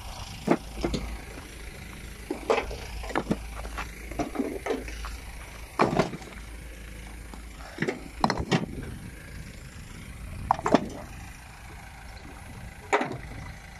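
Concrete paving stones knocking and clacking against each other and the trailer, about a dozen hard, irregular knocks, some with a short ring, over a low steady engine hum.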